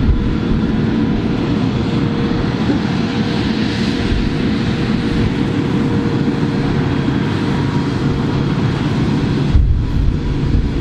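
Fendt Vario 820 TMS tractor's diesel engine working under load, driving a Dragone butterfly mulcher through a cover crop: a steady drone with a constant thin whine running through it. Near the end the sound turns duller and more rumbly.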